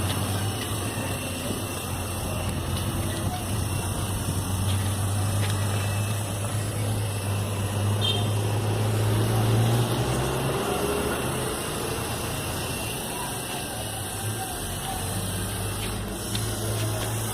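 A large engine running steadily with a low hum; the hum breaks up and shifts about ten seconds in, then settles again near the end.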